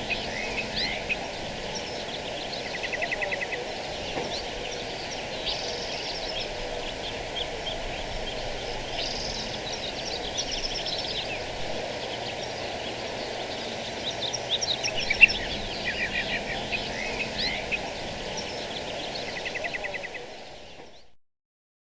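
Wild birds chirping and calling, with short rapid trills now and then, over a steady low background noise; the recording fades out and stops about a second before the end.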